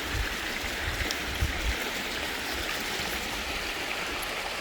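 Seneca Creek running steadily, a constant rush of moving water, with a few low thumps in the first couple of seconds.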